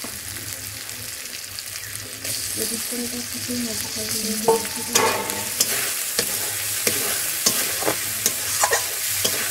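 Spice paste and chopped tomato sizzling in an aluminium kadai while being fried down (kasha), the hiss growing about two seconds in. From about halfway a metal spatula stirs it, scraping and clicking against the pan.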